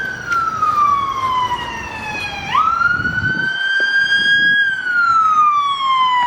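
Emergency vehicle siren wailing: a slow falling pitch that sweeps quickly back up about two and a half seconds in, holds, then falls again near the end.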